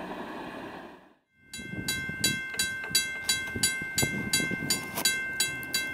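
A distant train's steady rumble cuts off about a second in. Then a railroad grade-crossing bell rings rapidly, about three strikes a second, each strike ringing on.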